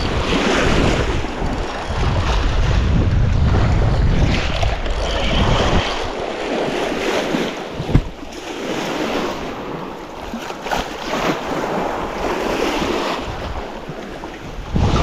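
Wind buffeting the microphone, heaviest in the first six seconds, over choppy lake water washing and splashing against a shallow, weedy shoreline. A single sharp knock about eight seconds in.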